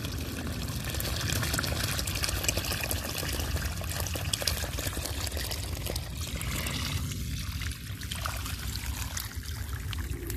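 Water from a submersible well pump gushing out of the end of a hose and splashing steadily into a shallow puddle.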